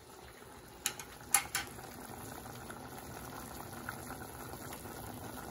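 Pot of Cornish hens boiling on the stove, a steady bubbling, with three sharp clicks about a second in, the second the loudest.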